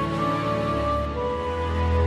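Slow instrumental background music with long held notes and a low note swelling near the end.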